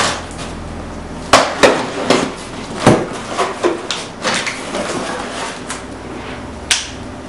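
A parcel being unpacked by hand: about half a dozen sharp knocks and clatters as the box and its contents are handled and set down, with lighter handling noise between.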